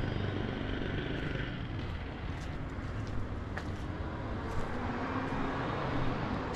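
Street ambience dominated by the steady low rumble of motor vehicle traffic, with a few faint clicks.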